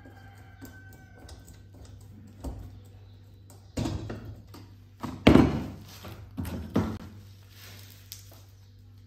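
Metal knocks and clanks as a rusty flat steel bar and a screwdriver bump against a steel frame while a screw is driven to fasten the bar. There are a handful of separate knocks, the loudest cluster about five seconds in.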